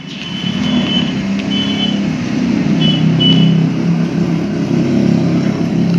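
A motor vehicle engine running close by, growing louder over the first few seconds and then holding steady, with a few short, faint high beeps above it.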